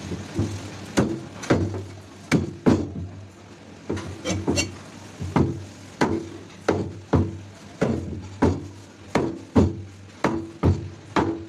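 Heavy cleaver chopping through a black snapper and its backbone into steaks on a thick wooden chopping block: a run of sharp, loud chops, roughly two a second, each with a short dull knock from the block, with a brief pause about three seconds in.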